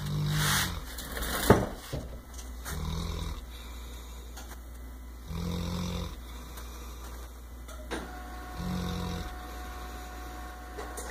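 English Mastiff snoring in her sleep: four low snores about three seconds apart. A sharp click about one and a half seconds in is the loudest sound.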